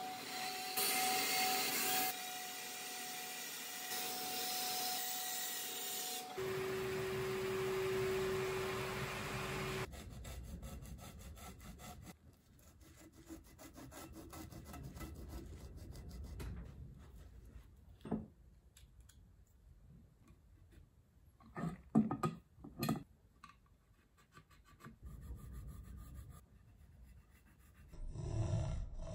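Bandsaw running and cutting through an ash handle blank for about the first ten seconds. Then quieter rubbing and handling of the wood, with a few sharp knocks in the second half.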